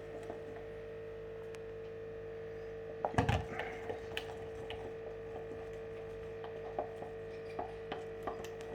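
Batter being stirred in a mixing bowl: a utensil knocks against the bowl, loudest in a cluster about three seconds in, then light scattered clicks. A steady electrical hum runs underneath.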